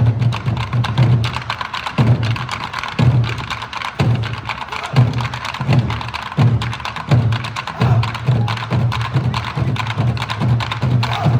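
Nanta-style Korean drum ensemble playing: heavy, booming drum strokes about once a second, with rapid sharp stick clicks between them.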